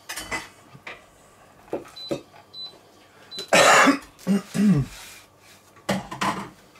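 A man coughs once, loudly, about halfway through, followed by a short throaty vocal sound, with a few light clicks and knocks around it.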